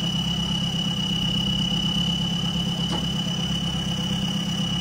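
Off-road 4x4's engine idling steadily, with an insect's steady high-pitched trill over it.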